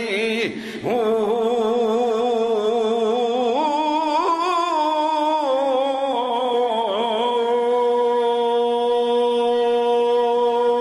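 A man singing a line of Punjabi Sufi verse in a slow, drawn-out style, his voice wavering up and down in pitch, rising about three and a half seconds in, then holding one long steady note from about seven seconds in.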